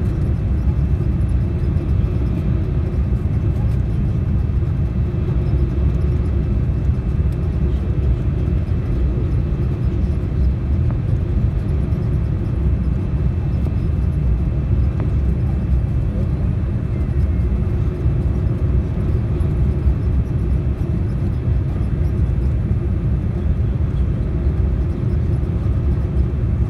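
Steady low roar in the cabin of a Boeing 787-9 Dreamliner on final approach: engine and airflow noise heard from a seat over the wing, with the flaps extended.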